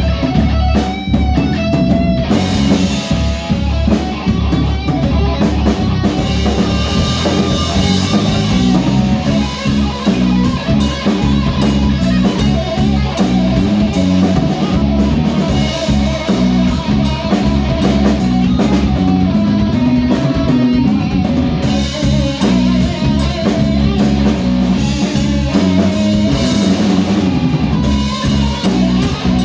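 Live rock band playing an instrumental passage: electric guitar over bass guitar and drum kit. The guitar is nearly alone at first, and the drums and cymbals come in about two seconds in.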